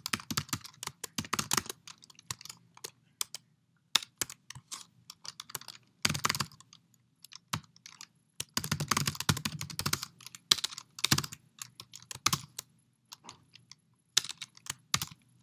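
Typing on a computer keyboard: quick key clicks in irregular bursts with short pauses between them.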